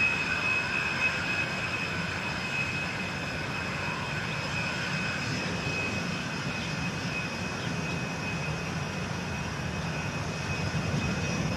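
Tupolev Tu-134 twin-jet's Soloviev D-30 turbofans at low power as the airliner taxis: a steady high whine over a low rumble.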